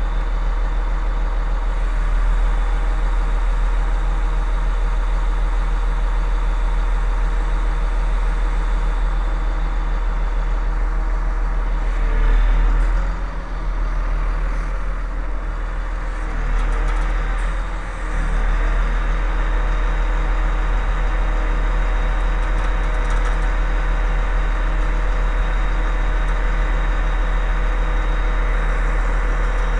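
Truck diesel engine idling steadily, most likely the crane truck's engine running to power the boom that lowers the new engine into the log stacker.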